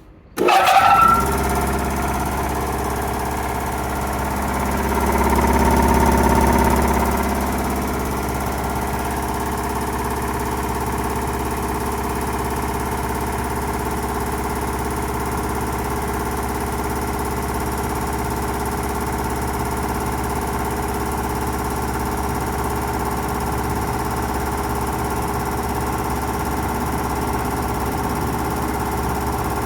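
Anest Iwata TPD22-10 3-horsepower reciprocating air compressor switching on about half a second in and running with a steady hum and pump clatter. It gets louder for a few seconds soon after starting, then settles to an even run.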